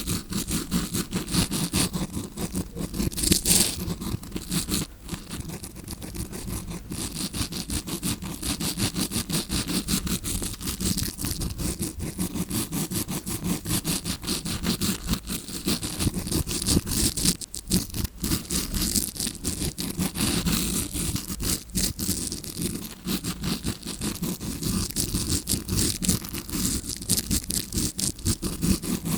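Tawashi scrubbing brush scratched rapidly and continuously against the microphone, a dense bristly scraping that imitates ear cleaning heard from inside the ear.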